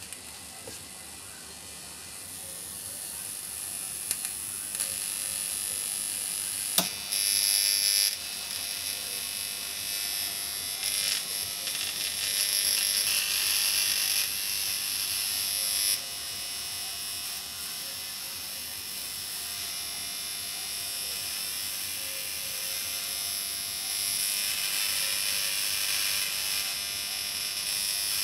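High-voltage electric discharge buzzing through magnesium shavings, growing louder over the first few seconds, with a sharp crack about seven seconds in and louder stretches after it while the magnesium burns.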